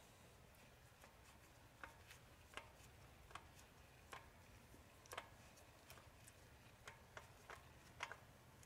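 Near silence broken by faint, irregular clicks and ticks, roughly one or two a second, as a Kubota BX25's spin-on oil filter is unscrewed by gloved hand.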